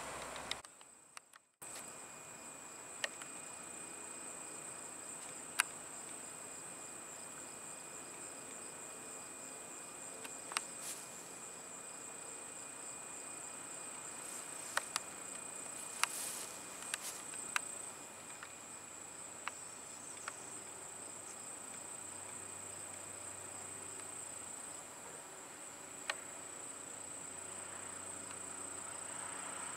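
Steady high-pitched chirring of insects, with a fainter pulsing chirp beneath it and a few sharp clicks scattered through. It starts after a brief silent gap about a second in.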